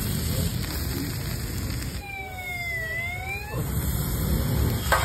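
Steady low street noise. About two seconds in, a siren-like pitched tone glides down and then back up once over about a second and a half.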